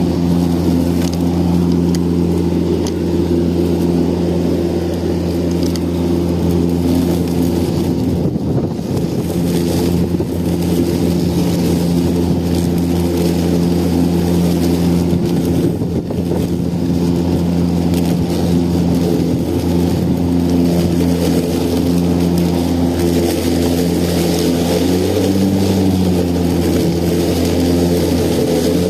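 Battery-powered lawn mower running, a steady low motor-and-blade hum that falters briefly twice and shifts pitch slightly near the end.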